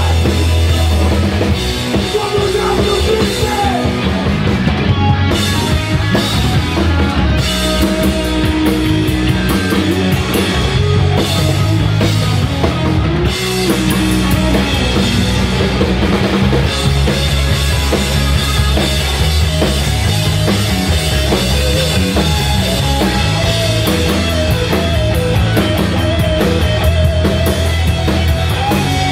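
Punk rock band playing live on a small club stage: distorted electric guitars, bass and a fast drum kit, loud and dense with no break.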